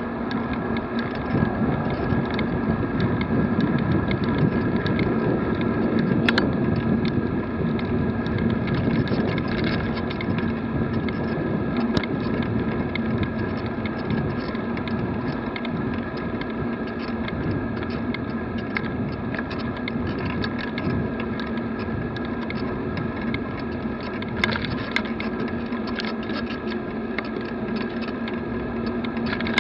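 Riding noise picked up by a camera mounted on a moving bicycle: steady road and traffic noise with a constant hum, broken by a few sharp clicks or knocks from the bike.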